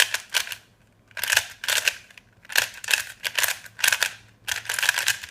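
A brand-new ShengShou 3x3 speed cube being turned for the first time: rapid plastic clacking of its layers, in about five quick runs of turns with short pauses between them.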